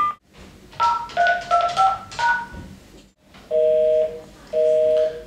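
Telephone keypad touch-tones: about five quick key presses, each a two-note beep. These are followed by a busy signal, two even dual-tone beeps about half a second on and half a second off, showing that the line is engaged or has cut the caller off.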